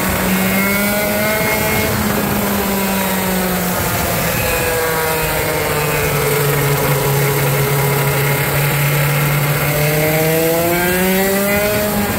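Parilla 125cc two-stroke go-kart engine running hard under way, its pitch easing down about four seconds in as the kart slows, holding lower, then climbing again near the end as it accelerates.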